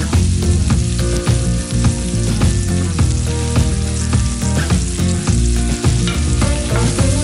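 Sliced sausage, red onion and garlic sizzling as they fry in oil in a pan, with a wooden spatula stirring through them near the end.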